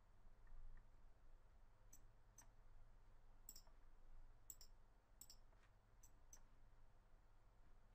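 Faint computer mouse clicks, about a dozen, several in quick pairs, over a low steady room hum.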